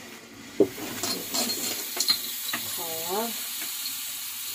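Water spraying from a handheld shower head onto a wet rabbit's fur, a steady hiss, with a sharp knock about half a second in and a few lighter clicks.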